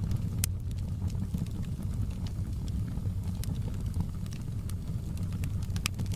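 Wood fire burning in a fireplace: a steady low rumble of flames with scattered sharp crackles and pops, the loudest about half a second in and just before the end.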